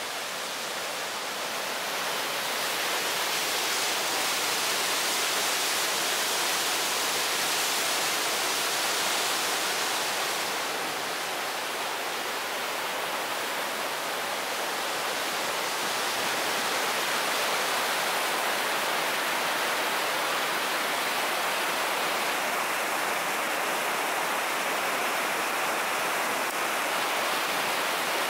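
Whitewater of a river's waterfall and rapids rushing steadily, a little louder at times.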